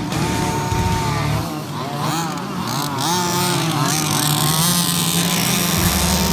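Small two-stroke petrol engines of 1:5 scale RC off-road cars revving up and down as they race, several at once.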